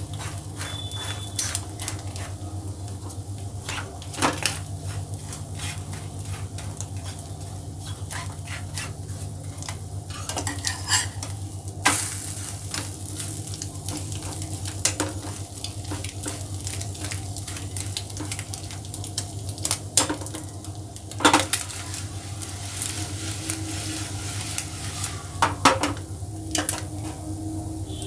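Egg and flatbread frying in a non-stick pan, sizzling under a steady low hum, while a metal spoon clinks and scrapes against the pan a number of times, with a few sharper knocks standing out.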